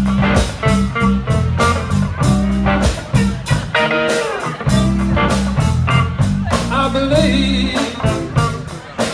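Blues band playing live: harmonica bending notes over electric guitars, bass guitar and drums keeping a steady beat.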